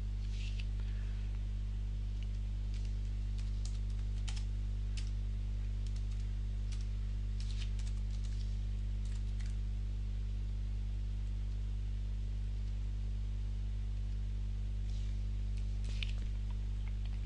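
Scattered keystrokes on a computer keyboard, single taps and short runs, over a steady low mains hum.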